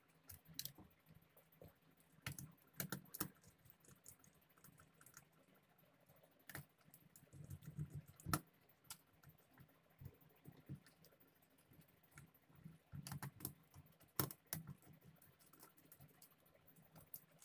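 Faint, irregular small clicks and taps of hands working on a plastic switch board, fitting wires to its terminals. They come in small clusters a few seconds apart.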